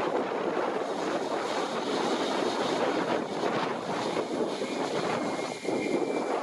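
Airbus A320's IAE V2500 jet engines, a steady rushing engine noise, mixed with wind buffeting the microphone.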